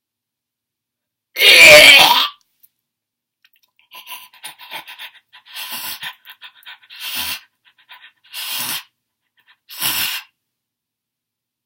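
A person making weird vocal noises with mouth and breath: one loud, harsh burst about a second and a half in, then about five shorter, quieter breathy, hissing noises.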